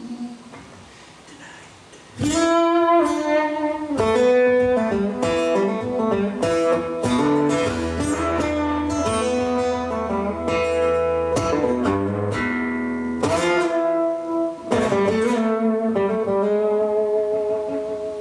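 Solo acoustic guitar playing without vocals. A chord rings and fades at first, then strummed and picked chords come in sharply about two seconds in and carry on with ringing notes.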